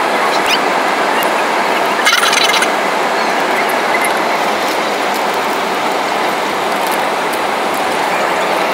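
Steady roar of an Airbus A320 in flight heard from inside the passenger cabin: engine and airflow noise, with a short rattle about two seconds in.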